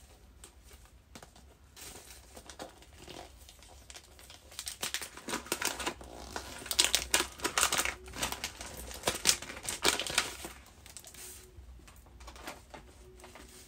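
Paper gift packaging being unwrapped and torn open by hand, with irregular crinkling and crackling. It starts as a few scattered clicks and is busiest in the middle, then settles down near the end.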